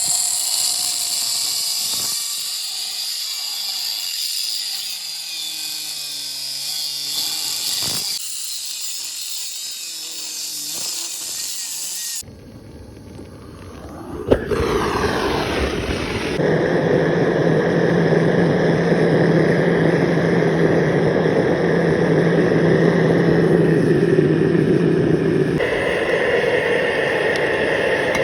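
Power tools working steel, in several cut-together takes. For about the first twelve seconds there is a high-pitched grinding or cutting noise. After a short change, a steadier, lower machine sound with a strong constant drone runs from about sixteen seconds in, and shifts in tone near the end.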